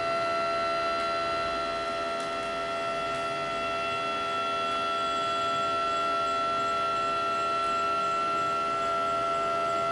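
Stepper motor of a DIY camera slider, driven by a grbl controller, whining at a steady pitch as it moves the camera carriage along the rails at constant speed.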